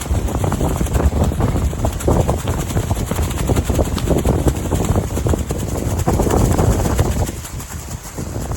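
Wind buffeting the microphone: a loud, uneven rumble that swells and eases, dropping off somewhat near the end.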